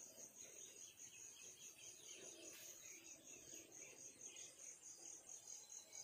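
Near silence with faint insect chirping: an even, rapid high-pitched pulse.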